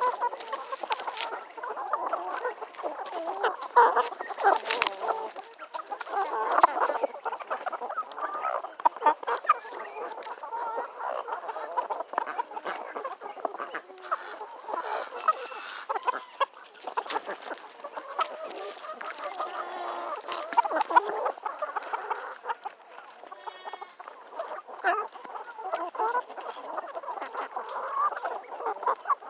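A flock of hens clucking continuously, close to the microphone, with scattered sharp taps and knocks mixed in.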